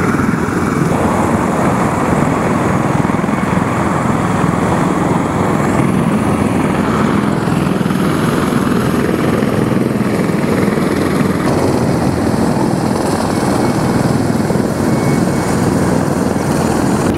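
CH-53E Super Stallion helicopter running, a loud steady rush of rotor and turbine noise.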